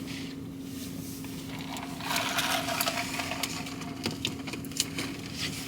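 Rustling and small clicks of takeout food packaging being handled and opened, over a steady low hum.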